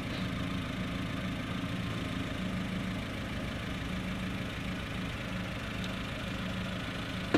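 1984 VW Jetta's four-cylinder engine idling steadily, its exhaust running without a catalytic converter. There is a brief louder moment near the end.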